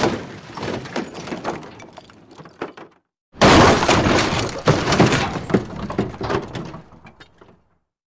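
Two metal impact sound effects, each a sudden crash followed by a rattling clatter that dies away. The first hits at the start and fades over about three seconds; after a brief silence, a louder second crash comes about three and a half seconds in and fades out over about four seconds.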